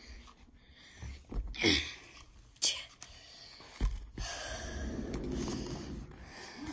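Handling noise from a handheld phone being moved about: rustling and a few scattered knocks.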